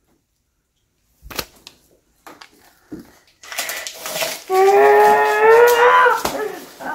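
A long, drawn-out groan from a child's voice, rising a little in pitch, about halfway through. Around it, the crackle and rustle of a paper note being crumpled, with a few clicks and rustles before that.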